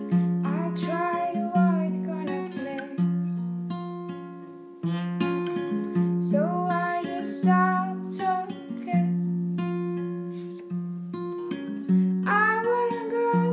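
Acoustic guitar playing held chords in a steady pattern, with a voice singing short phrases over it: near the start, in the middle and again near the end.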